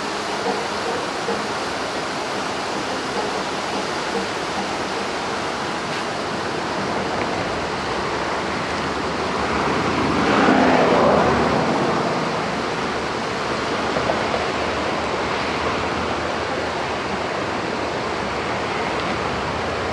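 Rushing river water, a steady even noise of fast-flowing current, swelling louder for a couple of seconds around the middle.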